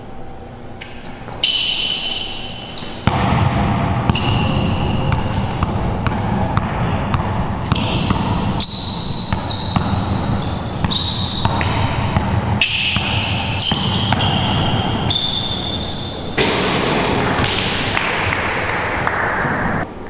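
A basketball being dribbled on a hard court floor in an echoing hall, with repeated short sneaker squeaks over a steady low rumble that starts about three seconds in.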